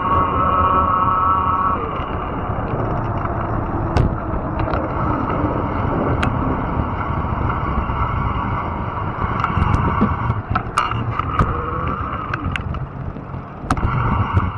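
Fat-tire electric bike being ridden: a steady rumble and rush of tyres and wind, with a steady motor whine that stops about two seconds in. Sharp clicks and knocks come scattered through, more of them near the end.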